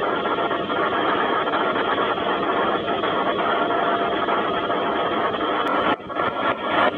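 Train running noise, a steady dense rumble with faint steady tones, recorded through a flip phone's harsh, hard-to-make-out microphone. About six seconds in, the noise suddenly drops and turns choppy.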